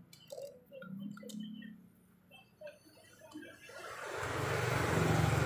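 A few faint clicks, then a passing motor vehicle's engine and road noise swelling in from about four seconds in and loudest near the end.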